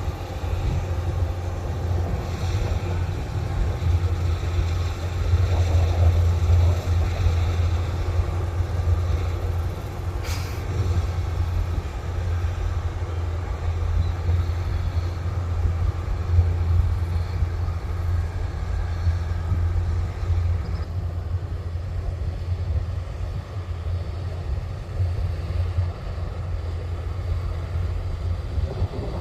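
Kubota rice combine harvester's engine running steadily with a constant deep drone, the machine working through the rice.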